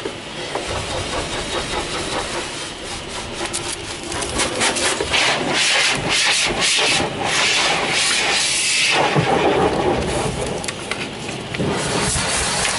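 Truck wash heard from inside a semi's cab: water spraying and scrubbing against the cab and windshield, a rough, rasping hiss that grows louder about four seconds in.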